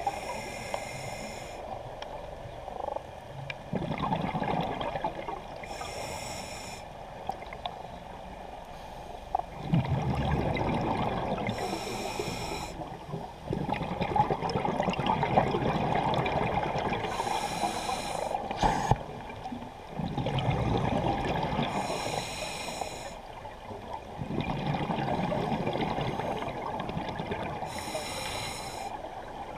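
Scuba diver breathing through a regulator, heard underwater: a hissing inhale about every five to six seconds, each followed by a longer bubbling exhale, about six breaths in all.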